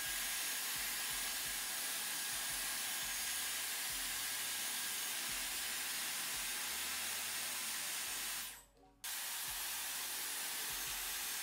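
Dyson Airwrap hot-air styler blowing through its curling barrel: a steady rushing hiss with a faint high whine. It cuts out briefly about eight and a half seconds in, then starts again.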